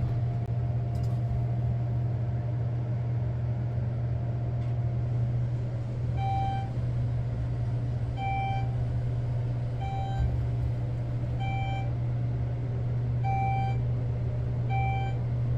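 Elevator car travelling up with a steady low hum. From about six seconds in, a short electronic beep sounds about every second and a half, six times: a floor-passing signal as the car climbs toward level 8.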